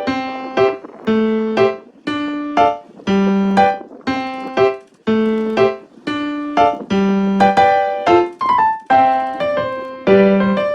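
Background piano music: a gentle repeating pattern of notes, about one phrase a second.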